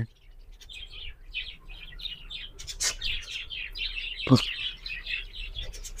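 A colony of budgerigars chirping and chattering in many quick high notes, with two short knocks among them, the louder a little past four seconds in.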